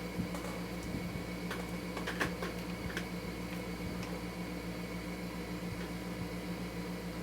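Steady machine hum, like a fan or air conditioner, with a few light clicks of small metal parts and tools being handled during motorcycle engine disassembly.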